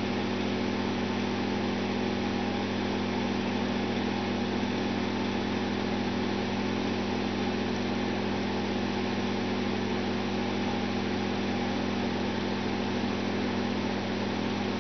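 Steady machine hum, unchanging, made of several fixed tones over a constant hiss.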